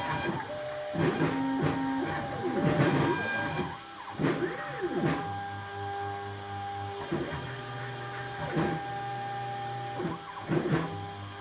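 CNC router engraving lettering into a wooden board. The stepper motors whine in rising and falling glides as the head moves from stroke to stroke, over the steady high whine of the spinning spindle.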